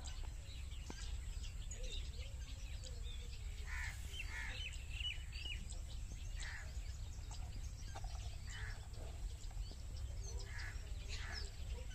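Outdoor ambience of birds chirping and calling, with short calls repeating about every two seconds from about four seconds in, over a steady low rumble.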